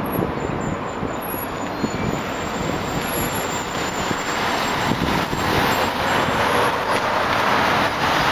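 City street traffic noise, a steady rush of passing cars and buses that grows louder in the second half, with low rumbling of wind on the microphone.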